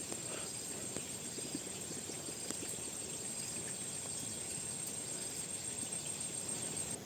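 Steady high-pitched insect drone, with a fainter chirp repeating about once a second; it cuts off abruptly at the end.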